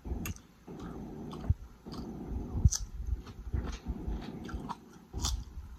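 Close-miked chewing and biting of a toasted footlong grinder sandwich, in uneven bursts with short sharp clicks.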